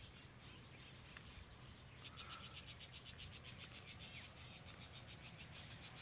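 Near silence outdoors, with a faint, rapid, high-pitched pulsing animal call that starts about two seconds in and repeats about eight times a second.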